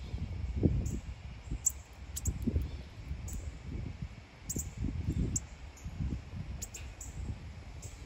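Wind buffeting the microphone in uneven low gusts, with about a dozen short, high bird chip notes scattered over it.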